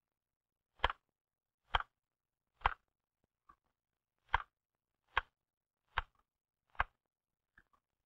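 Manual L.C. Smith typewriter keys struck one at a time, each a single sharp clack at an even pace a little under a second apart: seven clear strokes and two fainter ones.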